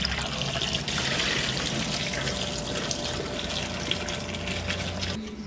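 Kitchen tap running into a stainless steel bowl while whole fish are rinsed by hand in a steel sink: a steady splashing stream of water. It cuts off suddenly near the end.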